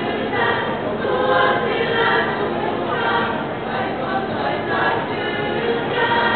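Female choir singing a cappella: several voices holding sustained chords that change every second or so, with a fuller chord starting near the end.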